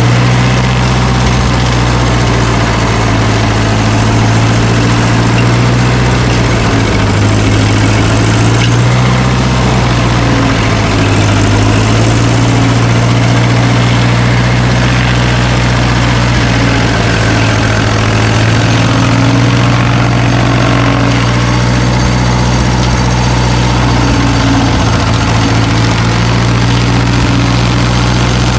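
Heavy machine's engine running steadily and loud, its pitch dipping and rising a few times as the engine speed changes.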